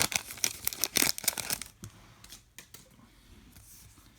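Trading-card pack wrapper crinkling and tearing open for about the first second and a half, then faint rustling as the cards are handled.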